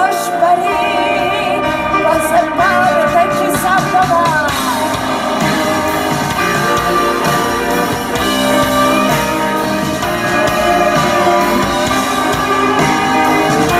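Live concert music: a woman singing a wavering, ornamented melody over the band for the first four seconds or so, after which the voice drops out and the band plays on.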